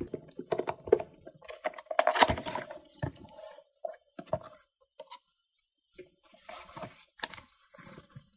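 Cardboard box and packaging being handled as a keyboard is unboxed: irregular scraping, rustling and small taps, with a short pause about five seconds in.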